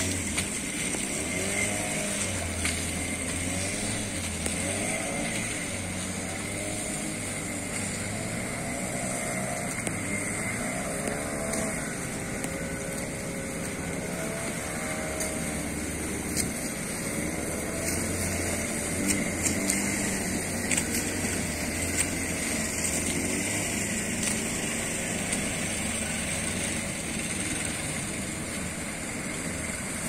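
Engine of a small outrigger fishing boat running at sea, its pitch rising and falling again and again as it rides the waves, over a steady hiss of wind and water. A few sharp knocks come about two-thirds through.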